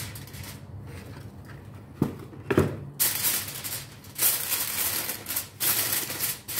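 Aluminium foil crinkling and crackling in uneven bursts as a sheet is pulled off the roll and pressed and crimped around the rim of a steel bowl. There are two sharp clicks about two seconds in.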